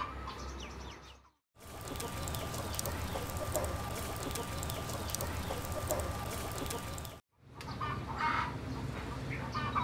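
Hens clucking in the yard at the start and again over the last couple of seconds. Between these, after a brief cut to silence, a wood fire crackles steadily with a faint steady tone under it, and the sound breaks off again before the clucking returns.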